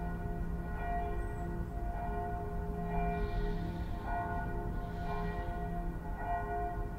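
Bells ringing, several pitches struck about once a second, each left ringing, over a low hum.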